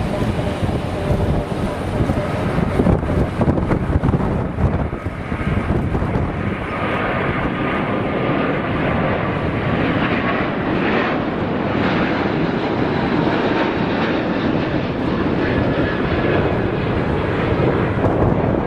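Airbus A380's four turbofan engines at takeoff power as the airliner lifts off and climbs away: a steady jet roar with a faint high whine over it.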